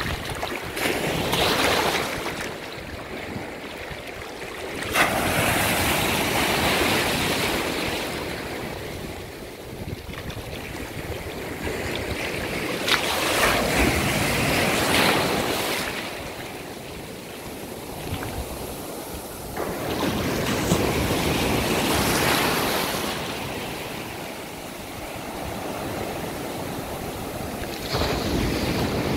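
Small sea waves breaking in the shallows and washing up the sand, the surf swelling and easing in surges every several seconds, some with a sudden splash as a wave breaks close by.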